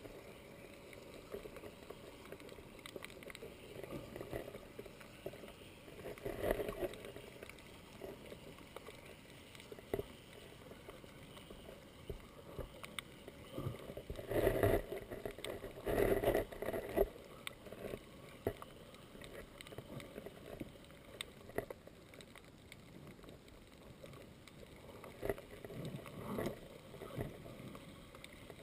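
Water lapping and sloshing around a small boat under way, in irregular surges, with a few light knocks.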